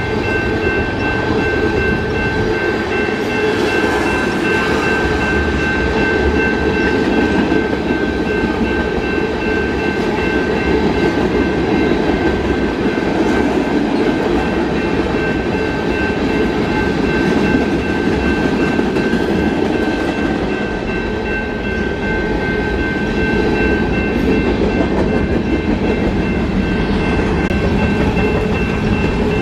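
Freight train cars rolling past a grade crossing: a steady rumble of steel wheels on rail with clickety-clack over the joints. A crossing bell rings over it as steady high tones that weaken after about twenty seconds.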